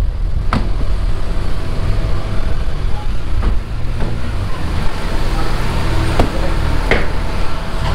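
Steady low rumble of vehicle engines idling, mixed with wind buffeting the microphone, with a few sharp knocks and clicks scattered through it.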